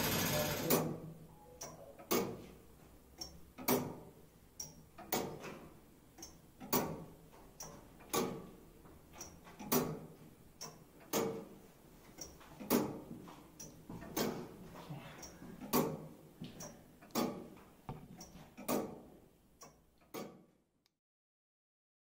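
Turret clock by J. Smith & Sons of Derby ticking steadily, its escapement giving a sharp tick about every three-quarters of a second, alternating loud and soft. The whirr of the winding gear dies away under a second in.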